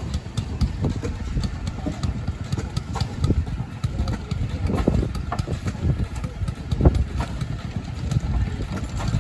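6 hp International Famous stationary engine running, with irregular low thumps and knocks.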